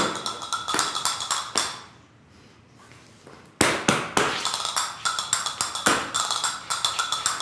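Flamenco castanets played in fast rattling rolls and clicks, punctuated by louder single strikes, with no accompanying music. About two seconds in the clicking stops for a pause of nearly two seconds, then starts again abruptly with a sharp strike.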